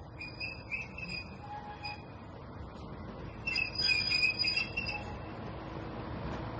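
Birds chirping, loudest in a burst just after the middle, over the low rumble of a vintage SNCV diesel railcar drawing nearer, its engine a diesel taken from a US Sherman tank. The rumble grows slowly toward the end.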